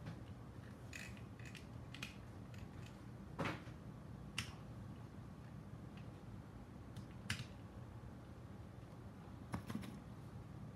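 Scattered small clicks and taps of hand tools, pliers and a soldering iron, being handled at a workbench during soldering, over a low steady hum. The sharpest clicks come about three and a half, four and a half and seven seconds in, with a close pair near the end.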